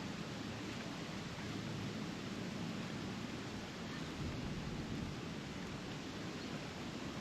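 Steady outdoor background noise, an even hiss with a low rumble, and no distinct calls or knocks.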